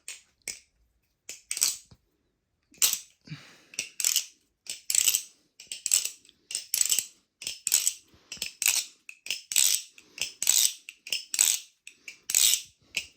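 Balisong trainer being flipped: its metal handles and blade clack in sharp clicks, about one and a half a second, starting about a second and a half in. It doesn't sound great; its screws are completely stripped.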